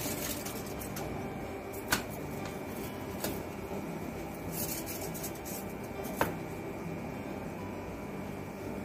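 A few sharp clicks and taps of a glass beaker and metal scissors and forceps being handled on a lab bench, over a steady background hum.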